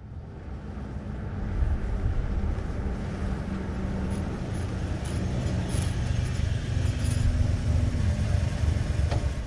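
Old truck engine running with a low rumble, growing louder over the first second or two, then steady.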